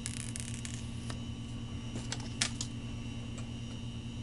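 Paper and cardboard packaging of an iPhone box being handled as the box is opened. There is a cluster of crackles and clicks at the start, then a few more about two seconds in, with the sharpest click near the middle. A steady low electrical hum runs underneath.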